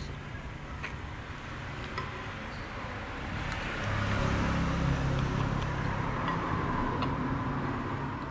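Road traffic: a motor vehicle's engine rumbling, swelling louder from about four seconds in as it passes close, then easing off near the end.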